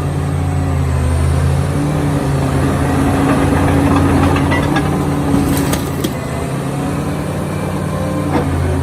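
Caterpillar D7G2 bulldozer's diesel engine running steadily, with a few sharp metallic clicks just past halfway and one more near the end.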